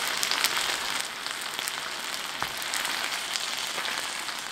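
Salted flounder frying in oil on a flat grill pan over an induction cooker: steady sizzling with scattered small crackling pops.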